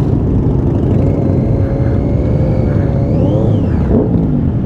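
Motorcycle engines running in slow stop-start traffic over a steady low rumble. An engine note holds steady, then rises and falls in a quick rev about three seconds in.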